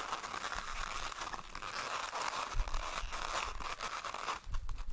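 Inflated latex twisting balloons rubbing and crackling against each other and the hands as they are pinched and twisted into place, with a couple of dull bumps midway and near the end.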